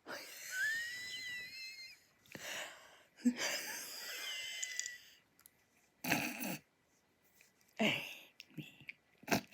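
A girl's hard, breathless laughter: two long airy wheezes with a high squeaky whistle gliding through them, then a few short, separate gasps and bursts of laughter with silences between.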